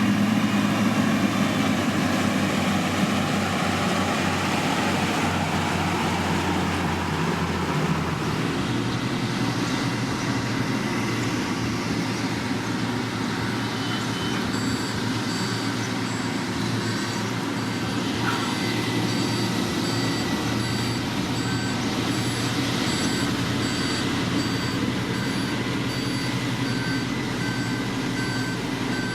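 Diesel engine of heavy road-building machinery running steadily, and from about halfway through a reversing alarm beeping about once a second as the machine backs up.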